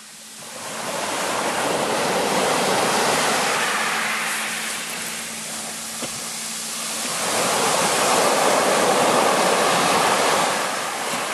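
Small waves breaking and washing up a shingle beach, the surf swelling twice: once building from about a second in, and again around seven seconds in.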